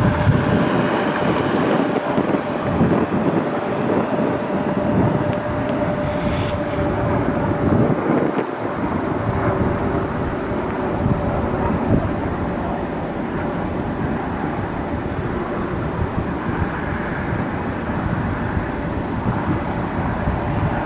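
Steady rumble of jet aircraft engines with a thin steady whine, mixed with wind buffeting the microphone.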